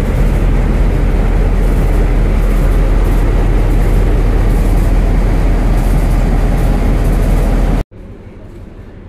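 Diesel locomotive engine running close by: loud, steady engine noise with a deep low end. It cuts off abruptly about eight seconds in, leaving much quieter background sound.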